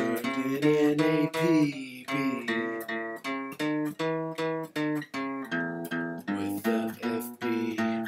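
Background music: an acoustic guitar picking a steady run of plucked notes, about three a second.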